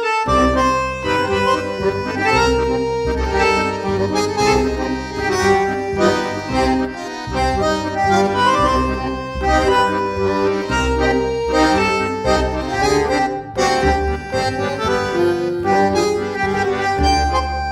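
Instrumental background music: a melody of held notes over a changing bass line.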